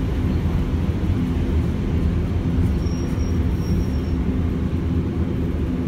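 Hiroshima Electric Railway 900-series tram (ex-Osaka city tram) running, heard from inside the car: the steady growl of its nose-suspended (tsurikake) traction motors and gearing over the rumble of wheels on rail. A faint high squeal sounds briefly near the middle.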